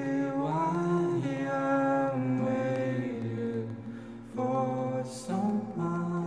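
Outro of a sad hip-hop song after the beat has dropped out: a slow, wordless sung melody of long held notes, with no drums or bass.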